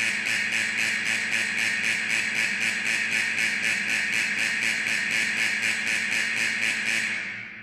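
Factory alarm sounding: a loud, shrill, steady ringing tone with a fast, even pulse, which stops near the end and dies away.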